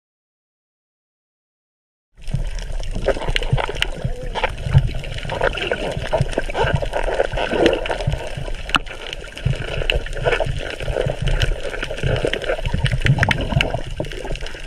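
Underwater sound picked up by a camera under water: a continuous rush of moving water thick with crackling clicks and bubbling, starting about two seconds in after dead silence.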